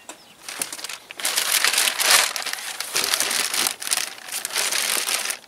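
Packaging being crumpled and handled, a run of dense crinkling and crackling that starts about half a second in and grows loud about a second in.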